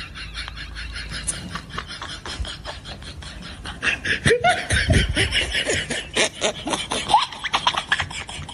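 Scottish Fold cat chattering at something outside the window: a rapid run of clicks throughout, broken by a few short rising chirps in the middle and near the end.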